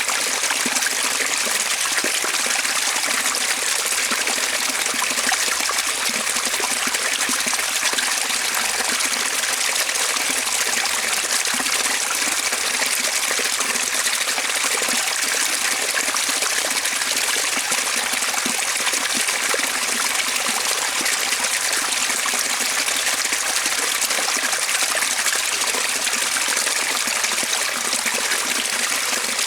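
Waterfall: falling water rushing steadily and evenly, a bright hiss with no breaks or changes.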